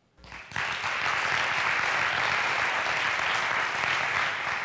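Audience applauding, swelling quickly just after the start and then holding steady.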